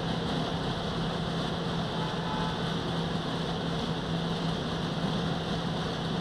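W 50 compact cold milling machine with its 4.1-litre diesel engine running steadily while it mills asphalt: a continuous drone with a constant low hum underneath and no breaks.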